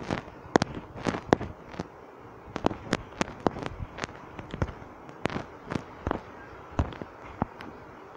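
Irregular sharp cracks, about two a second, each with a short smeared tail.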